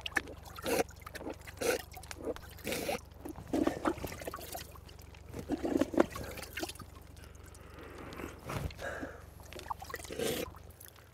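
Water scooped by hand from a wooden bucket, splashing and dribbling back into it, between short, heavy breaths at irregular intervals.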